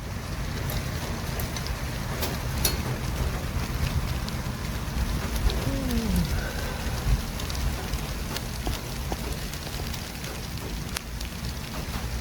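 City traffic ambience: a steady low rumble of vehicles with a hiss over it, a few faint ticks, and a brief falling tone about six seconds in.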